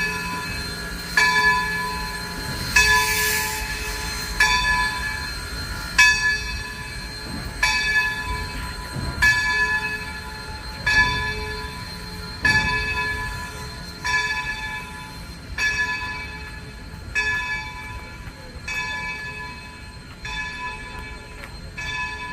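Steam locomotive bell of Baldwin switcher No. 26 ringing steadily, one stroke about every second and a half, slowly growing fainter.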